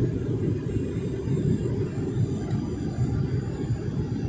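Steady low rumble of engine and airflow noise inside the passenger cabin of a Boeing 737-900ER descending to land.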